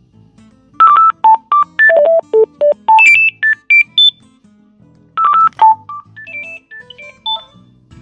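Gigaset A220 cordless phone handset ringing with a melody ringtone: quick beeping notes stepping up and down in pitch, one phrase, then the same phrase again about five seconds in. The phone is taking an incoming call with the microwave door open.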